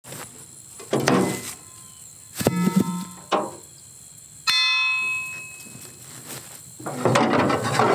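Loose broken steel pieces of a rotary mower's blade pan being picked up and knocked against the mower deck: several metal clanks, one about halfway through ringing out like a bell for about a second. Metal scraping and rattling near the end.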